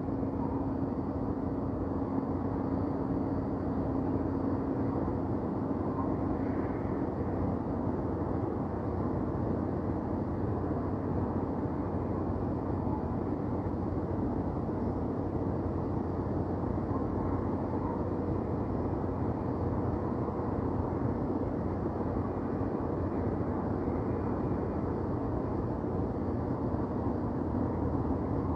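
Downtown city ambience: a steady low rumble with a constant hum running under it, and no distinct events standing out.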